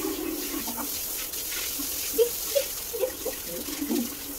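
Water spraying from a handheld shower head onto a dog's coat and the tiled floor, a steady hiss with a few brief louder splashes.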